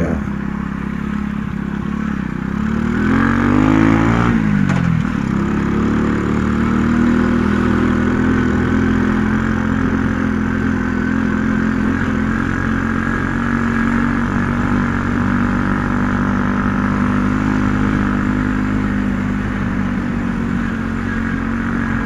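RX9 50 cc motorcycle's single-cylinder engine running as it is ridden: it rises in pitch as it speeds up from about two seconds in, drops sharply just before five seconds, then runs at a steady pace.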